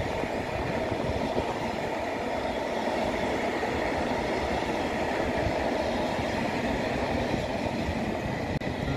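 Container freight train rolling past, a steady noise of its wagons' wheels running on the rails.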